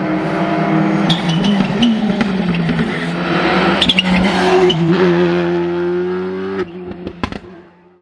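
Rally2 car's turbocharged four-cylinder engine at high revs, its pitch dropping and rising as the car lifts and accelerates through the bends, with several sharp cracks. The sound drops away and fades out near the end.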